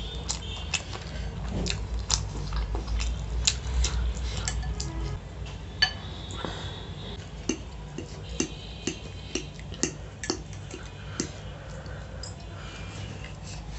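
Metal fork clinking and scraping against a ceramic plate while pasta is picked up, with chewing between the clinks. The clinks come closer together, about two a second, in the second half.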